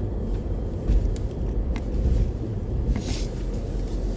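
Car driving, heard from inside the cabin: a steady low rumble of engine and tyres on the road, with a few faint ticks and a brief hiss about three seconds in.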